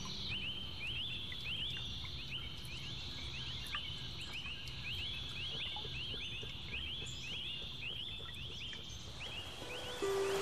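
Outdoor wildlife ambience: a steady run of short, high chirps that rise and then level off, repeating a few times a second, over a low steady rumble.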